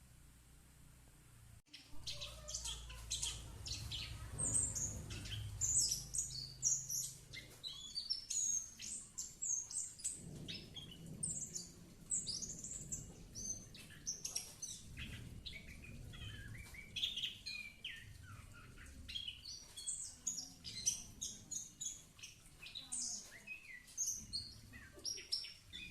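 A pet songbird singing a long, varied run of rapid high chirps and trills, starting about two seconds in.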